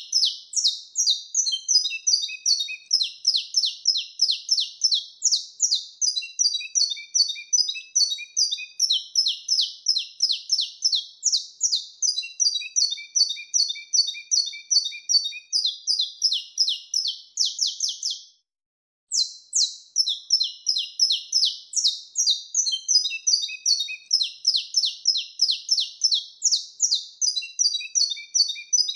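Saffron finch (canário-da-terra) singing its wild-type 'mateiro' song: long runs of sharp, high chirping notes at about four a second, with lower twittering notes mixed in. The song breaks off for under a second about two-thirds of the way through, then carries on.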